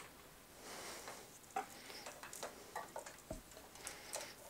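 Faint handling noise: light scattered clicks and soft rustling as loose hookup wires and cables are moved about on the bench.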